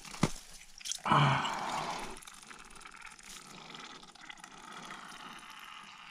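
Wet splashing and dripping from a freshly landed northern pike being handled at the ice hole. A few sharp clicks come first, then a louder splash about a second in, then only faint dripping.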